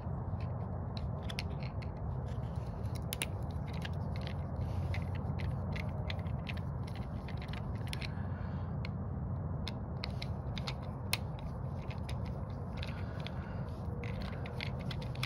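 Small irregular clicks and scrapes of a screwdriver turning out the screws that hold the fuel bowl on a small-engine carburetor, over a steady low hum.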